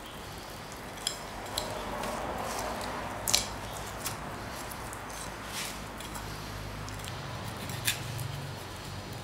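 Kitchen knife slicing through raw pig's-head flesh to cut out the tongue: faint wet cutting with a few light clicks of the blade, over a low steady hum.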